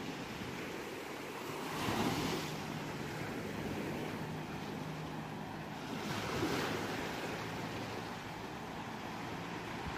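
Ocean waves washing onto a shore: a steady surf hiss with two waves swelling and breaking, about two seconds in and again about six and a half seconds in.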